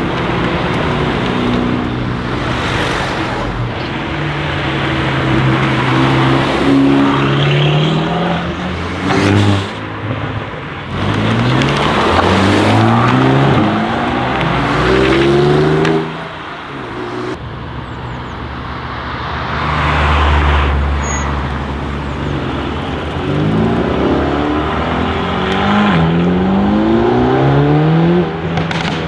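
Mercedes-AMG GT Black Series' twin-turbo V8 accelerating hard, its pitch climbing in quick steps through several upshifts, with a sharp crack about a third of the way in. A deeper, lower rumble follows midway, then another run of rising pitch through upshifts near the end.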